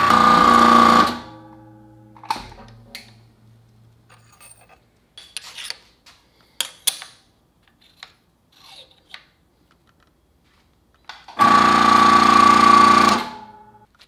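Electric hydraulic pump of a homemade press brake running under a foot-pedal switch as the ram presses a bend, cutting off suddenly about a second in when the limit switch trips, then light clicks and metal knocks as the part is repositioned, and a second run of about two seconds near the end that again stops abruptly at the limit switch.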